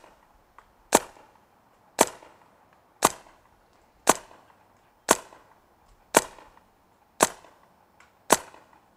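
Smart Parts Shocker paintball marker with a TechT Enertia bolt firing eight single shots, evenly spaced about one a second, each a sharp pop with a short fading tail.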